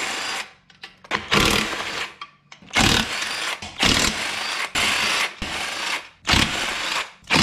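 Battery-powered impact wrench on a socket extension, spinning out the 12 mm bolts that hold down a J32 V6's intake manifold. It runs in short bursts of under a second each, about seven of them, with brief pauses as it moves from bolt to bolt.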